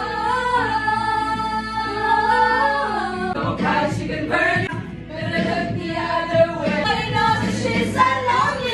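A group of people singing along loudly together to music: a long note held by several voices for about three seconds, then livelier group singing over a backing track with a beat.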